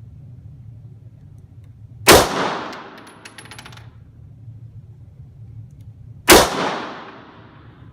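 Two gunshots from a firearm on a shooting range, about four seconds apart, each followed by a ringing echo that dies away over about a second.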